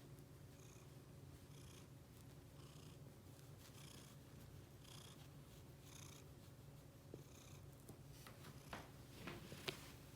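Faint domestic cat purring close to the microphone, each breath heard as a soft hiss about once a second. A few small sharp clicks come near the end.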